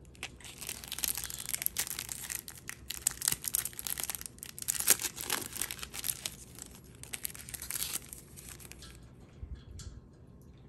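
Clear plastic packaging bag crinkling and rustling as it is handled, in a dense run of sharp crackles that tapers off about nine seconds in.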